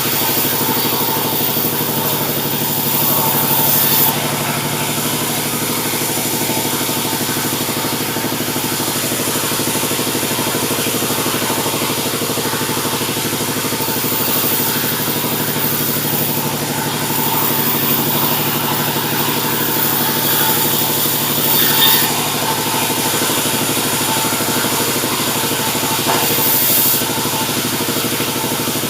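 Sawmill machinery running with a steady mechanical drone, sawing a mahogany log. Several times there are short, louder stretches of high hiss over the drone.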